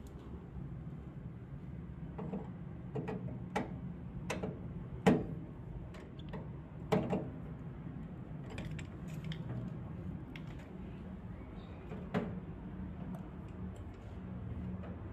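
Scattered small clicks and knocks of a screwdriver working wires into a plastic terminal block and of cables being handled, the sharpest knock about five seconds in, over a steady low hum.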